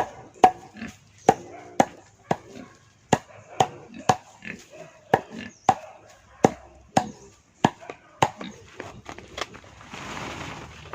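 Steady chopping, a blade striking about twice a second, stopping about eight seconds in, followed by a short rush of hiss near the end.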